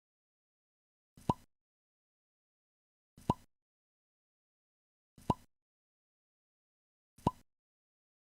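A short electronic 'bloop' sound effect, a quick upward-sweeping tone, repeated four times at two-second intervals with dead silence between.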